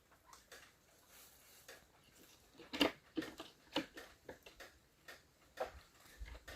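Irregular light taps and clicks, a dozen or so spread unevenly, the loudest a little under three seconds in.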